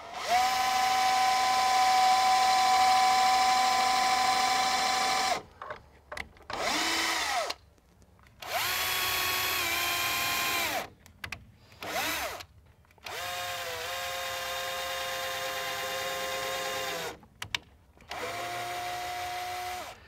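Bosch PSB 1800 LI-2 18-volt cordless drill boring pilot holes into a wooden gate post, to keep the wood from splitting. It runs six times with short pauses between: a steady motor whine that spins up and winds down. The first run lasts about five seconds and is the loudest, and two of the runs are only brief blips.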